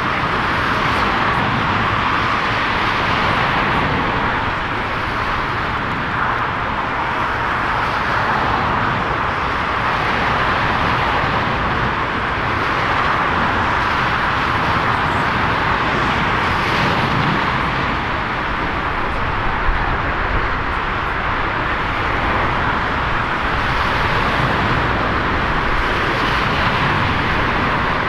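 Steady rushing jet engine noise of airliners taxiing at low thrust, swelling and easing slightly every few seconds.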